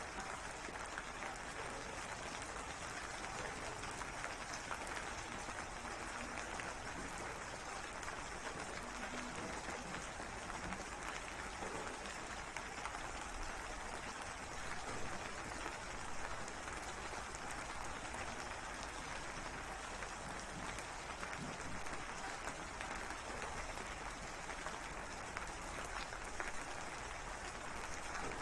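Steady rain falling, a dense, even patter with a few slightly louder drops.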